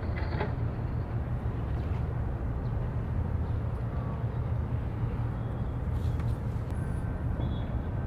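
Low, steady engine drone of a Japan Coast Guard Tokara-class patrol vessel under way, with a faint outdoor haze and a few small ticks over it.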